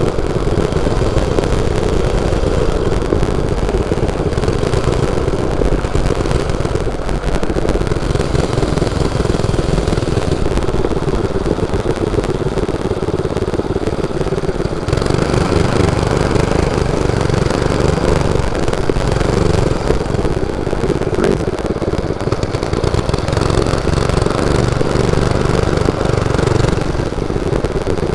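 Mini bike's Predator 212 single-cylinder engine running while riding, its note easing about seven seconds in and picking up again about halfway through.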